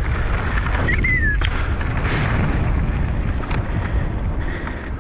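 Wind buffeting the ride camera's microphone over the rumble of a mountain bike's knobby tyres rolling on dirt and gravel, with a couple of sharp knocks from the bike and a brief high squeal about a second in.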